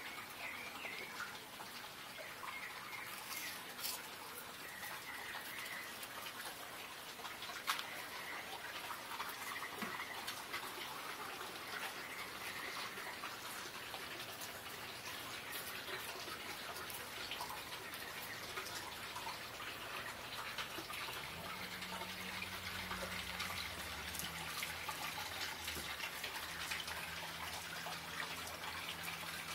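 Water trickling and splashing steadily, as from a terracotta pot garden fountain, with scattered faint clicks. A low steady hum joins about two-thirds of the way in.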